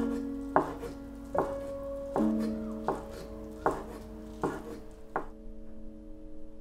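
Chef's knife slicing a thin fried egg-white sheet on a wooden cutting board: about seven slow, even knocks of the blade on the board, stopping about five seconds in. Soft background music plays under it.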